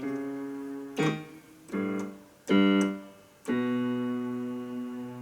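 Yamaha PSR-EW310 keyboard playing its piano voice in the low, left-hand part of the keyboard. Several notes are struck one after another, about a second apart, and each is left to ring and fade. The last one is held the longest.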